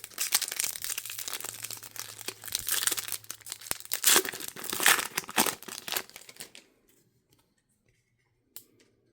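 Trading-card pack wrapper being torn open and crinkled in the hands, a dense crackling that stops about two-thirds of the way through. A single sharp click near the end.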